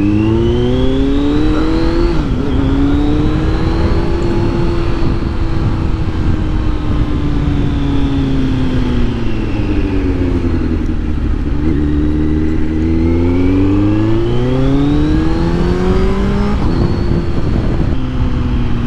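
Kawasaki Z900's inline-four engine with a LeoVince LV-10 slip-on exhaust, accelerating. Engine speed rises, dips briefly like an upshift about two seconds in, falls off slowly over several seconds, then builds again with another quick dip near the end.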